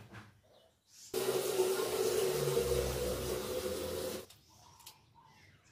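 Water running hard with a steady hum under it, starting abruptly about a second in and cutting off suddenly about three seconds later.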